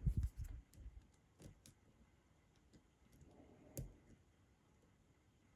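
Faint, sparse clicks and light knocks of a lock pick working the pins of a spool-pinned lock held under tension, with one sharper click a little before the four-second mark.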